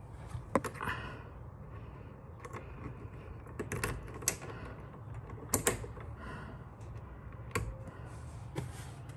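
Sharp mechanical clicks and clacks as a key is fitted and turned in a golf cart's dashboard key switch, with the braided keychain knocking against the dash. The clicks come singly and in pairs, spread out, the loudest around the middle.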